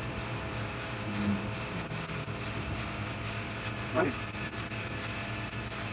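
Carpet-cleaning upholstery extraction tool drawing across a mattress: a steady suction hiss over the low hum of the truck-mounted extraction unit. A short squeak about four seconds in.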